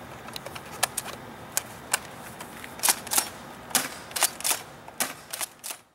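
Bravo B28A spring-powered tri-shot airsoft shotgun being test fired: a run of about a dozen sharp plastic clacks and snaps, irregularly spaced, from the pump being worked and the spring releasing.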